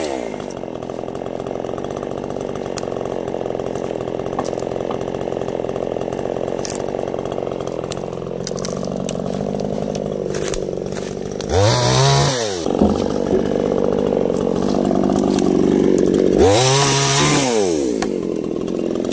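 Two-stroke petrol chainsaw dropping from cutting revs to a steady idle, then given two short throttle blips, one about two-thirds of the way through and one near the end, each revving up and falling back to idle.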